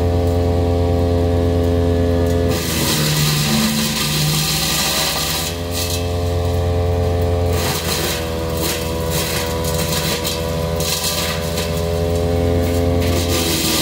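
Big Bear Power BBC-62 wood chipper running at full throttle while branches are fed through it. Its engine note sags briefly about three times as the cutter takes a load, under a rough grinding noise of wood being chipped.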